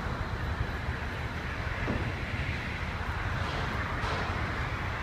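Steady din of heavy construction machinery at a building site: a continuous low engine rumble with a broad hiss over it.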